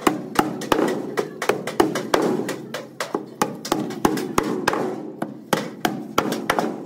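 Hammer striking metal in a quick, slightly uneven run of blows, about three a second.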